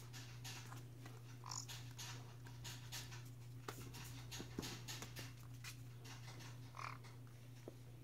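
A puppy moving about at play: scratchy clicks and shuffling, with two brief squeaks, one about a second and a half in and one near the end.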